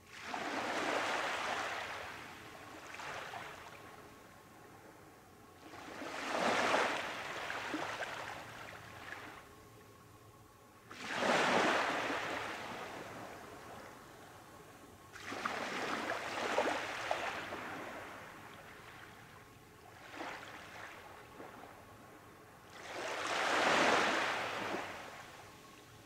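Small waves breaking and washing up a sandy beach. Five larger surges come a few seconds apart, each rising quickly and fading into a hiss, with smaller washes between them.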